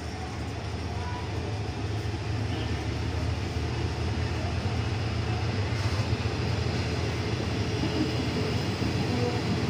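A Thai passenger train's coaches rolling past along the platform track as the train pulls out of the station: a steady low rumble that grows gradually louder as it gathers speed.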